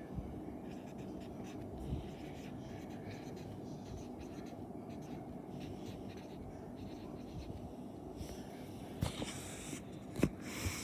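Marker pen writing on a whiteboard: faint scratchy strokes over a steady low hum. A couple of louder knocks and rustles come near the end.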